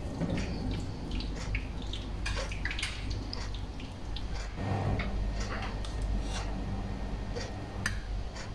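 Kitchen background: a steady low hum with scattered faint irregular clicks and crackles, and one sharper click near the end.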